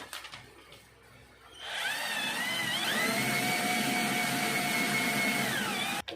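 A small electric motor whirring: its whine rises as it speeds up about two seconds in, holds steady, then falls away and stops just before the end.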